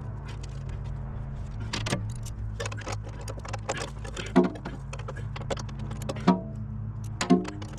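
Tools and hardware clinking and clanking on metal while train horns are bolted in place, with three louder metallic clanks that ring briefly, over a steady low hum.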